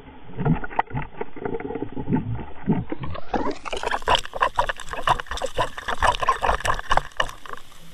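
A hooked sea trout thrashing on a trolling line, heard through an underwater camera being jolted on the line: dense, irregular knocking and rattling with watery gurgles. The racket starts suddenly as the fish takes the lure.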